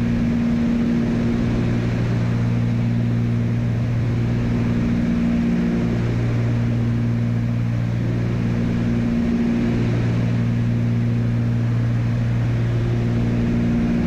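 Cessna 310's twin piston engines and propellers droning steadily in flight, heard inside the cockpit as an even low hum.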